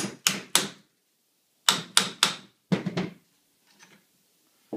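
A small hammer tapping a pin punch to drive out a trigger guard's rear roll pin: about ten sharp taps in quick groups of two or three, each ringing briefly.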